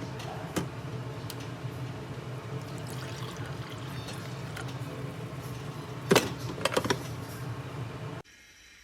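Water running or pouring steadily, with a few sharp clinks about six to seven seconds in. The sound cuts in and cuts off abruptly.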